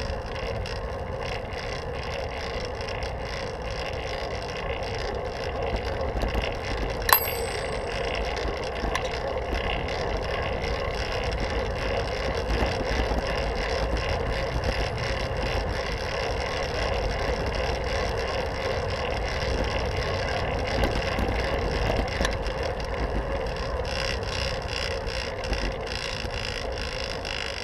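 Fixed-gear bicycle rolling along a paved city street: steady tyre and drivetrain noise mixed with wind on the microphone, with one sharp click about a quarter of the way through.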